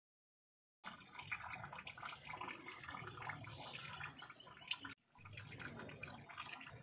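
Liquid splashing and dripping over a stone idol, a busy wet patter of small drops. It starts abruptly about a second in, breaks off for a moment about four seconds later, then resumes.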